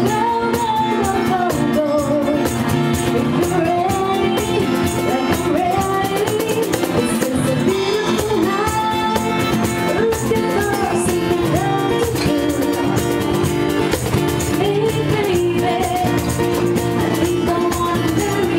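A woman sings a pop ballad live through a microphone, accompanied by strummed acoustic guitar and light hand percussion.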